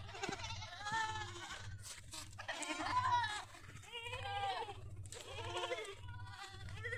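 Goats bleating: about five separate calls, one after another through these seconds, with the loudest about three seconds in.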